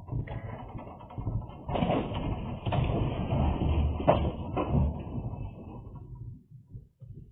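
Rumbling and rattling of a room and its contents shaking in an earthquake, with a few sharp knocks in the middle, dying away near the end.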